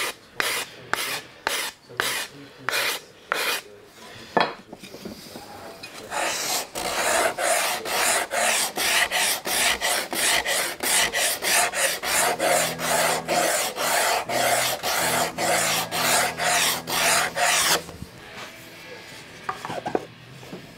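A wooden guitar backplate being hand-sanded in back-and-forth strokes on a sandpaper-covered sanding stick. The strokes come about two a second at first. After a brief pause they resume faster and louder, about three a second, then stop about three seconds before the end. A single knock follows as the plate is tried in its recess.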